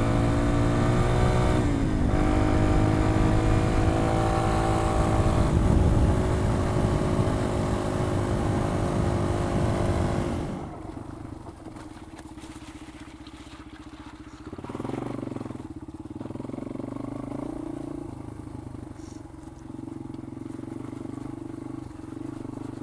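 Yamaha XT225's single-cylinder four-stroke engine running under throttle while riding, its pitch dipping briefly about two seconds in. About ten seconds in the throttle closes and the engine drops to a quieter, steady low running note.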